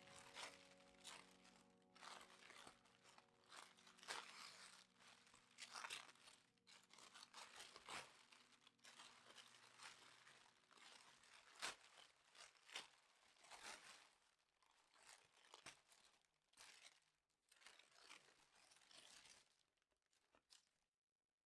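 Close-up rustling and crinkling of packaging being handled, with irregular small crackles and soft taps; quiet background music fades out over the first several seconds.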